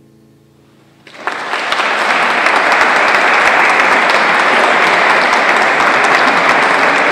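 The last notes of guitar and piano fade out, then an audience breaks into applause about a second in, building quickly to loud, steady clapping.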